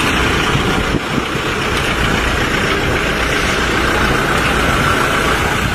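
Toyota Hilux pickup trucks driving slowly past one after another, their engines running steadily. A faint steady high whine joins about two seconds in.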